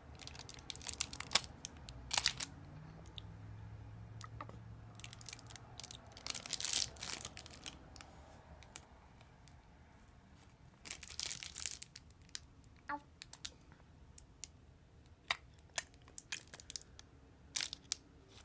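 Clear plastic candy bag crinkling as a small child handles it, in irregular bursts of rustling with short pauses between.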